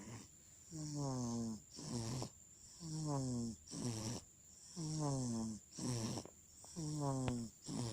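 A baby just under three months old snoring in sleep, about one breath every two seconds. Each breath has a pitched snore that slides slightly down, followed by a shorter breathy rush.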